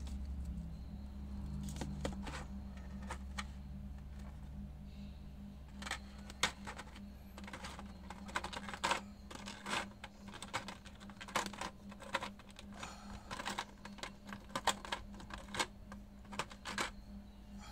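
Clear plastic blister tray crinkling and clicking as small accessory parts are picked out of it by hand: a run of sharp, irregular clicks, a few at first and many from about six seconds in.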